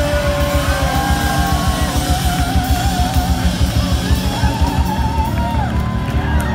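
Live rock band playing loud: guitar over a fast, driving drum beat.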